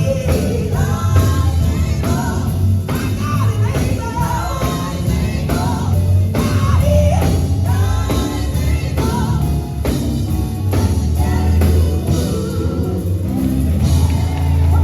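Live gospel singing by a sister vocal group, backed by a band with a heavy bass line and a steady drum beat.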